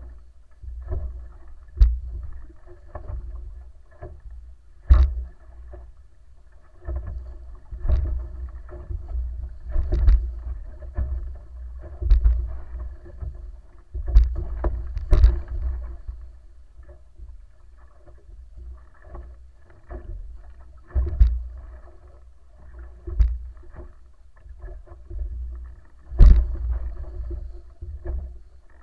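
Wooden wa'apa outrigger sailing canoe under way: water rushing past the hull with a low rumble, broken every second or two by sharp knocks and slaps as the hull and outrigger meet the waves, over a faint steady hum.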